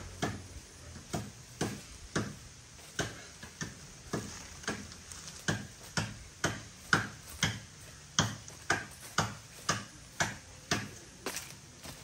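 A steady run of sharp taps or knocks, about two a second, some louder than others.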